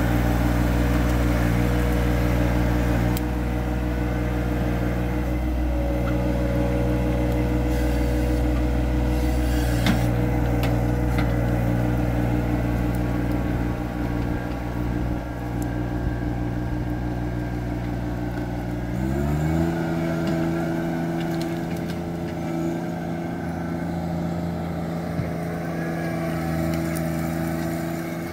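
John Deere 1025R compact tractor's three-cylinder diesel running steadily, growing a little fainter as the tractor moves away. About nineteen seconds in the engine speed rises quickly and then holds at the higher pitch.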